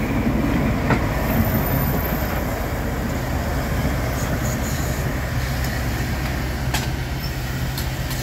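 British Rail Class 14 diesel-hydraulic locomotive D9520, its diesel engine running steadily as the locomotive moves slowly away along the platform.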